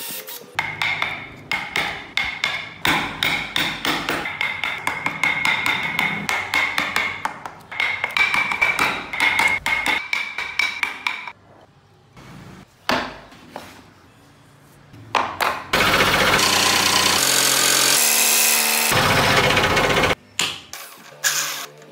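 Woodworking tool sounds: about ten seconds of rapid knocking and scraping of carving tools on wood, a quieter stretch of light scraping, then a bench power tool running steadily for about four seconds.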